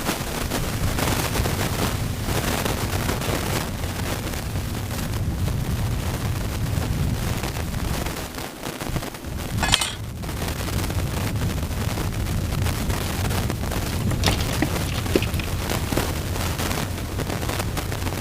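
Wind buffeting the microphone on an open boat: a steady, loud low rumble that flutters and gusts, with a brief sharp hiss about halfway through.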